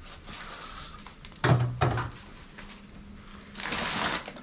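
Two dull thumps about a second and a half in, then rustling near the end as the camera is grabbed and handled close to its microphone.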